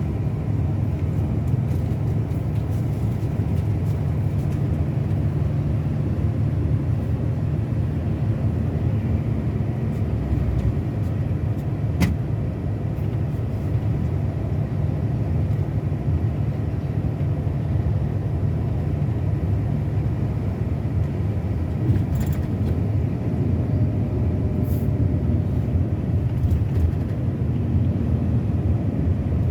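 Scania K360 coach's diesel engine running steadily under way: a constant low drone mixed with road noise, with one sharp click about twelve seconds in.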